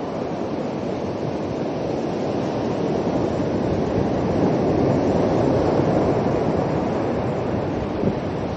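Ocean surf washing onto the beach, mixed with wind on the microphone: a steady rush that swells slightly midway.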